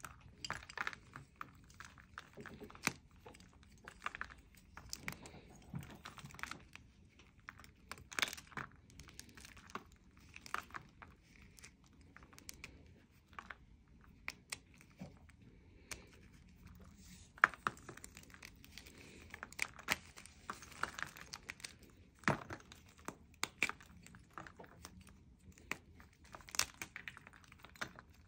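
Blocks of gym chalk being crushed and crumbled by hand in a plastic tub: irregular crisp cracks, crunches and crumbling.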